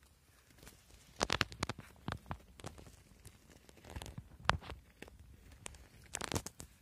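Dry twigs and grass rustling and crackling in a few short, irregular clusters as an old nest is handled and poked through.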